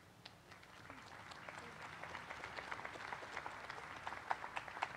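Crowd applauding, starting faintly about a second in and building steadily, with a few sharper single claps standing out near the end.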